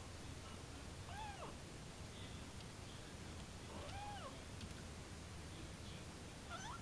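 British Shorthair kitten meowing three times, each a short call that rises and then falls in pitch, a few seconds apart; the third comes right at the end.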